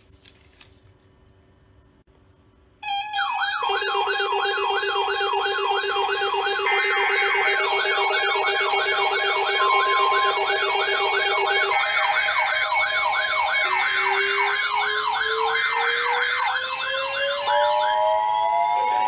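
Several electronic siren-like alert tones start together about three seconds in: a fast warble of about three cycles a second layered over steady high tones. A rising glide begins about two-thirds of the way through, and a steady two-note tone joins near the end.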